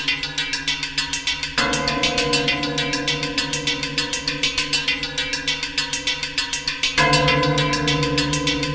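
Experimental percussion improvisation on struck metal: a fast, even pulse of strikes, about four to five a second, over sustained ringing tones. The tones change abruptly about one and a half seconds in and again near the end.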